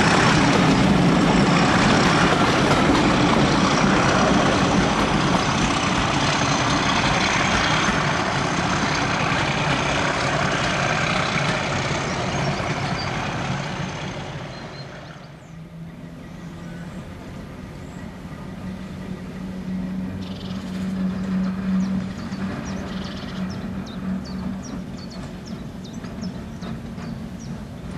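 Diesel locomotive working hard as it hauls a train of coaches away, a loud steady engine drone that fades out after about fourteen seconds. Then a Class 08 diesel shunter's engine runs at a low steady hum as it approaches slowly with a wagon, swelling briefly about twenty seconds in, with faint clicks near the end.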